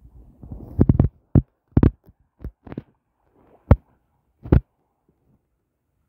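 Irregular dull thumps and knocks on the microphone, about nine of them over the first five seconds, with a low rumble under the first second.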